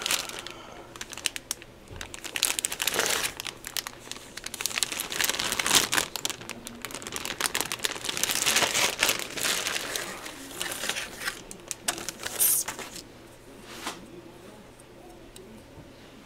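Clear plastic bags crinkling in irregular bursts as plastic model-kit sprues sealed inside them are handled and turned over, dying away in the last few seconds.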